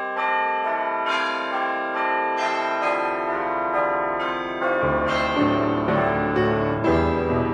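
Church bells ringing a rapid peal, the strikes following one another two or three times a second and ringing on. Deeper musical notes join about halfway through.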